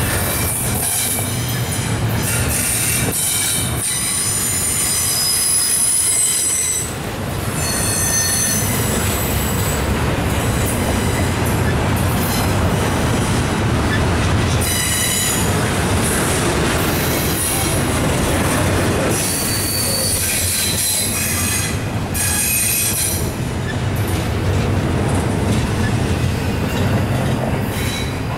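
Double-stack intermodal well cars of a freight train rolling past, the wheels rumbling on the rails, with repeated bouts of high-pitched wheel squeal.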